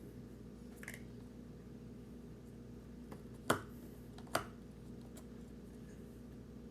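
Two sharp clicks about a second apart near the middle, over a steady low hum.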